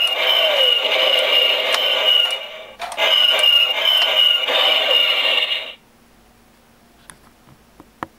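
Electronic sound effect from an AT-AT toy's head/cockpit sound unit, played through its small speaker with a thin, narrow sound. It comes in two noisy bursts of a few seconds each with a brief break between them, then cuts off suddenly about six seconds in, followed by a couple of faint clicks.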